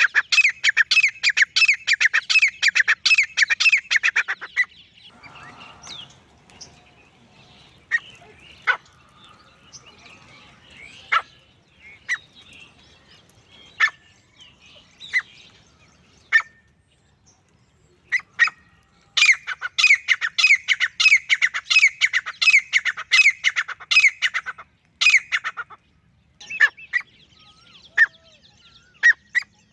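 Male grey francolin calling: a fast run of repeated high, sharp notes for about four seconds, then scattered single notes, then a second fast run of about six seconds in the second half, with a third beginning at the very end.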